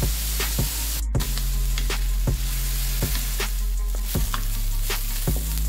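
Chopped onions and curry leaves sizzling in hot coconut oil in a metal wok, frying toward light brown. A wooden spatula scrapes and taps against the pan at irregular intervals as they are stirred. The sound breaks off for a moment about a second in.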